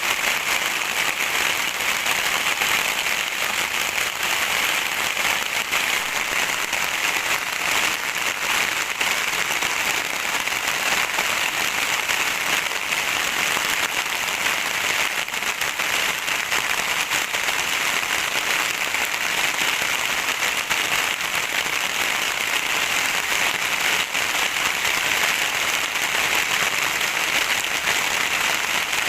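Steady rain falling, a dense, even hiss that holds at one level throughout.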